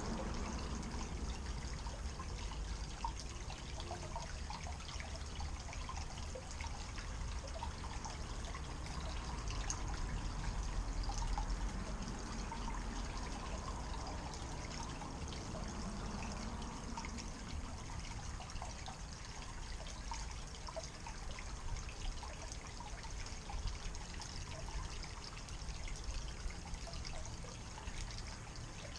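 Water trickling and splashing steadily over the stacked rocks of a small garden-pond waterfall into the pond.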